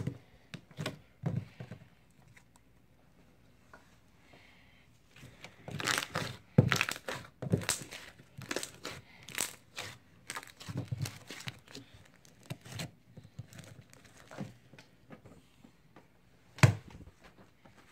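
Crunchy homemade slime being kneaded and squeezed by hand, crackling and popping irregularly. A single louder pop comes near the end as the slime is stretched thin.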